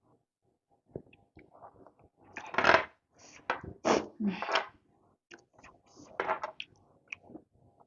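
Close-up eating of noodle soup and chicken feet: a few loud noisy mouth bursts of slurping and sucking, the loudest about two and a half seconds in, among small sharp clinks of a utensil against the bowl.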